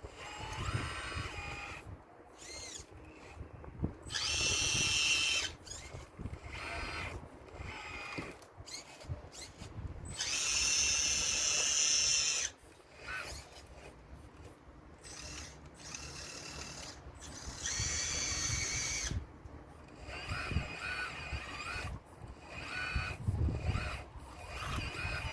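Electric hydraulic pump and drive motors of an RC model excavator whining in stop-start bursts as it works, with three longer, louder runs of a couple of seconds each and shorter rising and falling whines between. Scattered knocks and low rumble come in between the whines.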